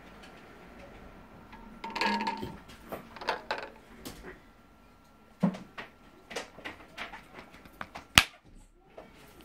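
Plastic clicks and knocks from a BlenderBottle shaker's lid being handled, with one sharp, loud snap near the end as the thumb pushes its flip cap open.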